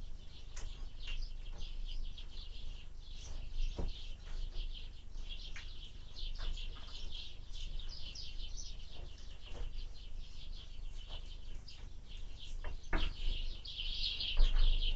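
Small birds chirping rapidly and continuously at a window feeder, with a few sharp taps or knocks on the feeder, over a low rumble of wind on the microphone.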